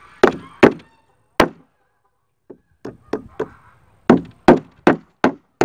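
Hammer driving nails through a pine batten into the pine boards of a door: three hard blows, then four light taps to start the next nail, then a steady run of hard blows about three a second.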